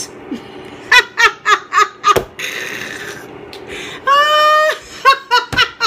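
A woman laughing hard: a string of short bursts of laughter, a breathy gasp in the middle, one long high-pitched squeal about four seconds in, then more quick bursts near the end.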